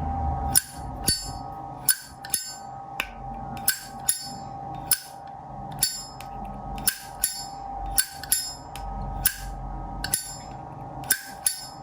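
1985 brushed-chrome Zippo lighter's hinged lid being flicked open and snapped shut over and over: about seventeen sharp metallic clicks with a bright ring, often in quick pairs. This is the lid 'sound' that Zippo collectors judge, here called OK.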